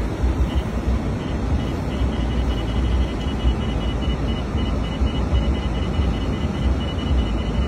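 Steady road and engine noise heard from inside a moving vehicle's cab: a low rumble with tyre and wind noise. A faint high-pitched beep repeats rapidly over it.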